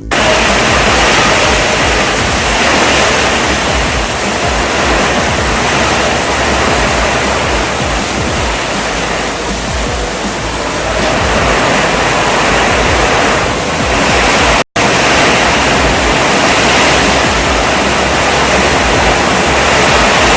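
Heavy rain pouring down, a loud, steady, dense rush of noise, broken by a split-second dropout about two-thirds of the way through.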